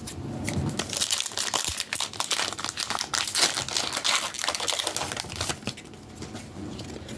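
Foil booster pack wrapper crinkling as it is torn open.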